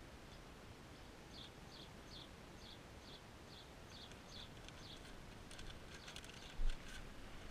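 A small bird chirping faintly and repeatedly, about two short high chirps a second, then a scatter of light clicks and one dull thump near the end.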